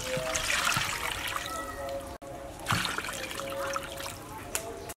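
Water poured from a plastic dipper into a stainless steel bowl of raw pork pieces, splashing and trickling over the meat. The pouring comes in two runs, broken by a brief cut about two seconds in.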